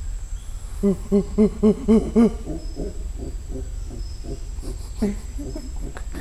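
A man imitating a monkey call: a quick run of six hoots, each rising and falling in pitch, about four a second, followed by fainter, looser hoots.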